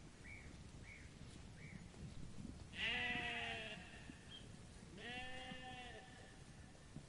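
Sheep bleating: two wavering bleats about a second long each, the first about three seconds in and louder, the second about two seconds later. Faint short high chirps come before them.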